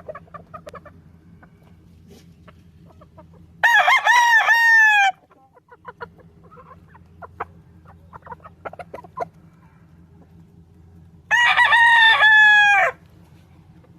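Gamefowl rooster crowing twice, each crow about a second and a half long and falling in pitch at the end, several seconds apart. Faint short clicks come between the crows.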